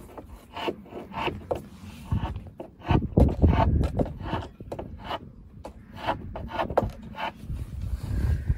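Hand scraper scraping old varnish off a wooden window frame, in short, uneven strokes of wood rasping against the blade.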